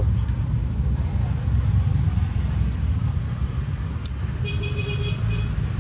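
Steady low rumble of road traffic, with a sharp click about four seconds in and a brief high-pitched tone shortly after.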